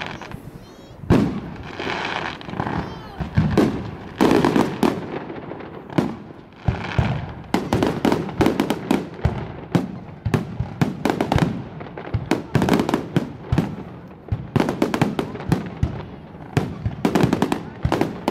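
Fireworks display: a run of sharp bangs and crackling reports, sparse in the first few seconds and then coming thick and fast in rapid volleys.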